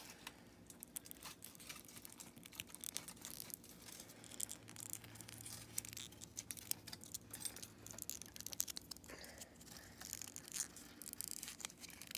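Faint, scattered clicks and scrapes of small toy sailboat puzzle pieces being handled and pressed together.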